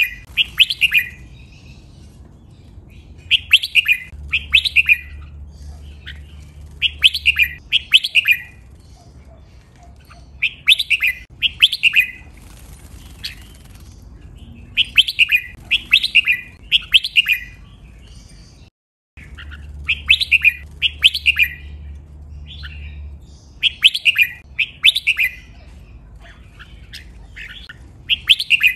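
Red-whiskered bulbul singing short, bright whistled phrases of a few quick notes, often two in close succession, repeating every three to four seconds. The song briefly cuts out a little past the middle.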